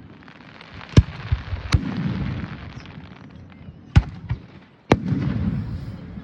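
Aerial fireworks going off: four sharp bangs of shells bursting, about a second in, near two seconds, at four seconds and just before five, each followed by a rolling low rumble.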